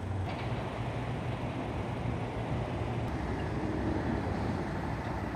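Steady vehicle noise: a low engine hum under an even haze of traffic.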